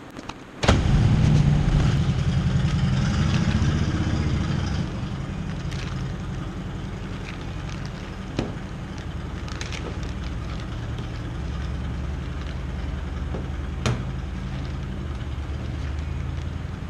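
A low, steady motor-like drone starts suddenly about a second in and runs on, easing off a little after a few seconds. A few sharp clicks and crinkles from a plastic bag being handled are heard over it.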